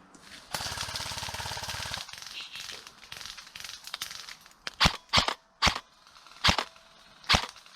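Airsoft guns firing in a forest game: a full-auto burst of about a second and a half from an electric airsoft rifle, then five loud, sharp single shots at uneven intervals over the last few seconds.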